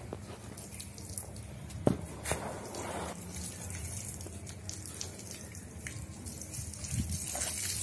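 Water from a garden hose splashing and dripping on wet paving stones where a baby elephant works the hose end with its trunk. A sharp knock comes about two seconds in.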